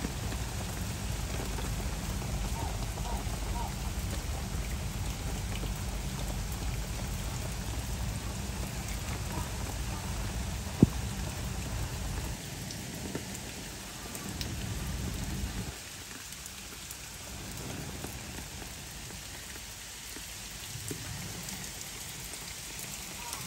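Steady rain falling on a pool's water surface and the rocks around it. A deep low rumble runs underneath for the first two-thirds, then drops away. There is one sharp click near the middle.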